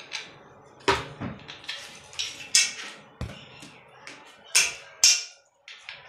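Sharp clinks and knocks of metal ceiling fan parts being handled and fitted together at the down rod coupling, about five knocks spaced irregularly, with light rustling between.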